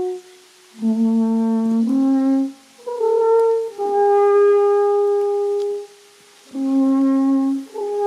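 Alphorn playing a slow tune of long held notes with brief pauses between them, stepping between a low note and higher ones.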